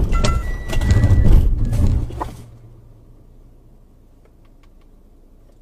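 A car running off the road over the kerb into large landscaping rocks, heard from inside the car: a sudden bang, then about two seconds of knocking and scraping with a brief squeal, after which only a low engine hum and a few faint clicks remain.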